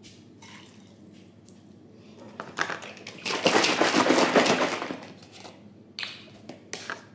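Crackly rattling and rustling of kitchen items being handled for about two seconds in the middle, with a few short knocks near the end, as oats, a plastic measuring cup and an oat milk carton are handled over a ceramic bowl.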